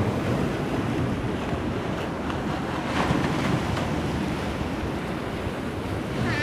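Sea surf washing steadily against the rocks of a stone breakwater, with wind buffeting the microphone.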